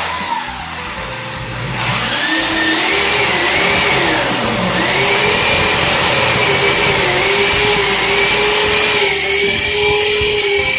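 Electric power tool's motor running with a high whine, its pitch sagging and recovering a few times as it takes load, growing louder about two seconds in.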